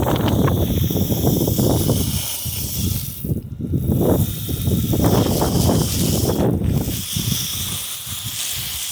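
Gusty wind buffeting the microphone: a low rumble that surges and eases irregularly, with a hiss on top, dropping briefly in a couple of lulls.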